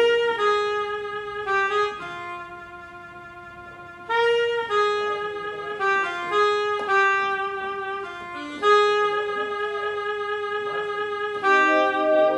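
Digital keyboard playing a melody in held notes that sustain without fading, over a chordal accompaniment, with a quieter passage about two to four seconds in.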